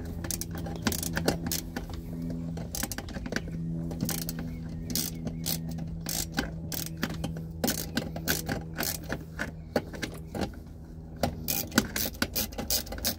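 Socket ratchet with a swivel socket clicking in quick, irregular runs with light metal clinks, as a nut holding the ABS brake unit to the firewall is backed off. A steady low hum runs underneath.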